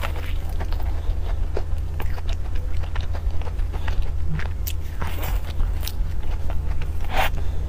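Close-up eating sounds of someone biting into and chewing a cream puff with a crackly choux crust: scattered soft crunches and wet mouth clicks, a few louder ones near the end, over a steady low hum.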